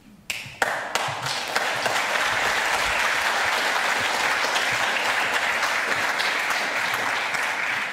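Audience applauding, starting with a few claps and swelling to steady, dense applause within the first second, then beginning to die away at the end.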